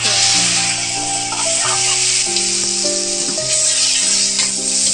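Raw chicken pieces dropped into hot oil with frying onions in a wok, sizzling loudly the instant they land, then frying on while stirred with a wooden spatula.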